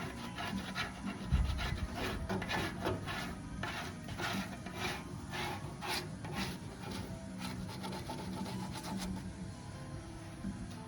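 Repeated hand strokes scraping and rubbing on the car body's painted sheet metal, about two to three a second, working off paint softened by chemical stripper.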